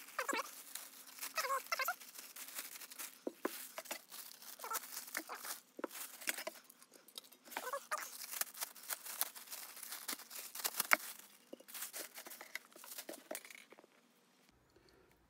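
Plastic packaging crinkling, rustling and tearing as parts are unwrapped by hand, with scattered clicks and light knocks as the parts are handled and set down. The sounds die away about a second and a half before the end.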